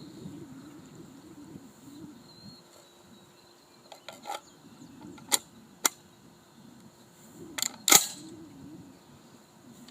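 A few sharp clicks, then about eight seconds in a single 12 gauge shotgun shot fired through a ported muzzle brake.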